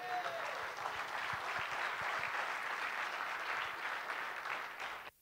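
Audience applauding: a steady wash of many hands clapping, which cuts off suddenly just before the end.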